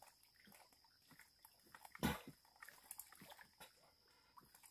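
Faint water sloshing and dripping from a man wading chest-deep and groping with his hands among submerged logs and roots, with one louder burst of noise about two seconds in.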